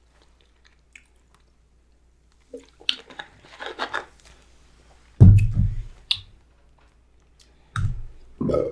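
Close-up chewing and wet mouth sounds of someone eating, with a few louder low thuds, the first about halfway through, and a sharp click between them.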